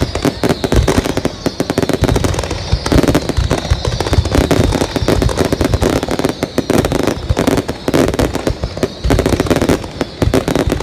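Fireworks going off in a dense, continuous barrage of bangs and crackles, many a second without a break, with a faint thin whistle wavering high above them.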